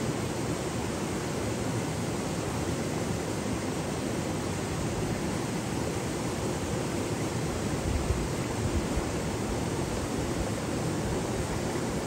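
Waterfall rushing steadily, an even wash of falling water with no break, and a brief low thump about eight seconds in.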